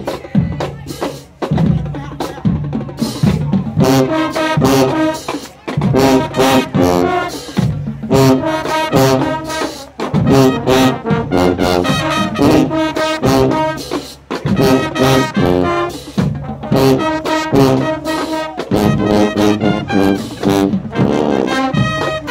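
High school marching band playing: trumpets, trombones and sousaphones in short, punchy chords repeated over and over, with drums underneath.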